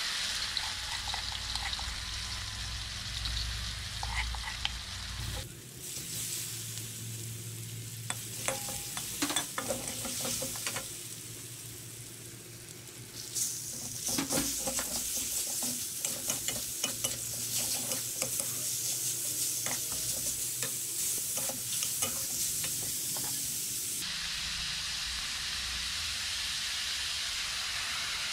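Chopped chillies and garlic sizzling in hot oil in a metal wok, stirred with a spatula that scrapes and taps against the pan. Partway through, minced meat goes in and the sizzling gets louder.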